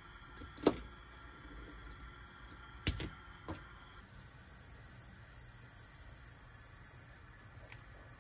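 A kitchen knife chopping asparagus on a cutting board, three sharp chops in the first few seconds, the first the loudest. Then a pan of green liquid simmering with a soft, steady hiss as curry powder is sprinkled in and stirred.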